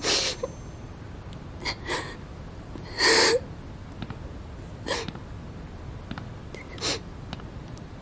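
A woman crying quietly, with short sniffs and catching, sobbing breaths about every second or two; the longest sob comes about three seconds in.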